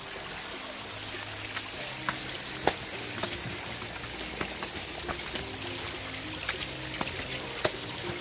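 Rain falling and rainwater running over stone steps: a steady hiss with sharp taps of drops here and there. Background music with slow, held low notes plays over it.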